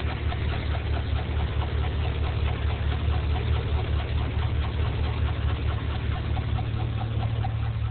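5.3 L Vortec V8 engine idling steadily with a regular light ticking, several ticks a second, over its low hum: the funny noise the owner is showing.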